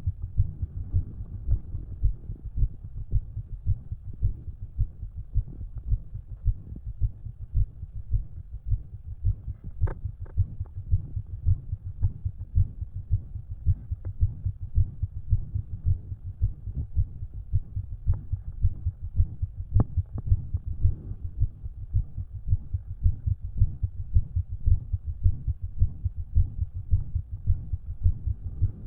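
A person's heartbeat at rest heard through a stethoscope: steady, evenly spaced beats low in pitch, with a murmur and an extra heart sound that the owner guesses may be an S4. A few faint clicks stand out briefly about ten, eighteen and twenty seconds in.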